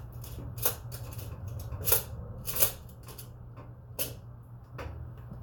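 Kitchen handling sounds: about five light clicks and knocks, a second or so apart, as items on the counter are picked up and set down, over a steady low hum.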